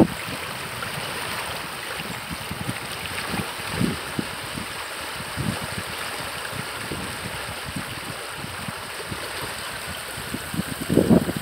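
Flood-swollen creek rushing steadily, its fast muddy current breaking around tree trunks. Irregular low buffets on the microphone come and go, heaviest near the end.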